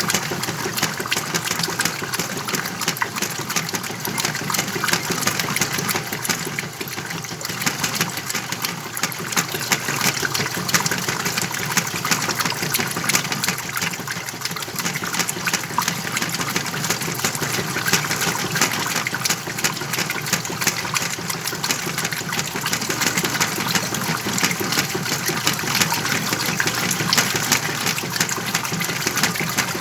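Whirlpool washing machine running a wash load of sheets and pillows, with water gushing and sloshing steadily in the tub.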